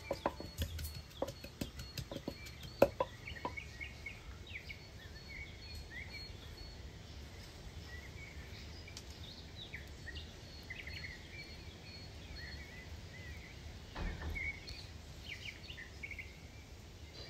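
Small birds chirping over a steady low rumble of outdoor ambience. In the first few seconds there is a quick series of sharp knocks and clicks, the loudest about three seconds in.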